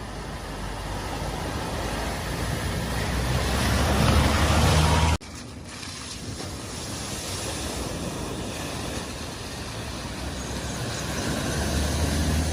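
A vehicle driving through a flooded ford, its engine and the rush of water around the tyres growing louder. The sound cuts off suddenly about five seconds in, and a second pass builds up again toward the end.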